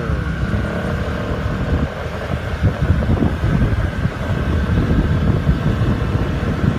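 Small motor scooter running at riding speed, its engine under a steady rumble of wind buffeting the microphone.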